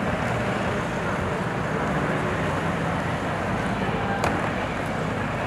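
Outdoor crowd ambience: indistinct background voices over a steady low rumble, with one short sharp click about four seconds in.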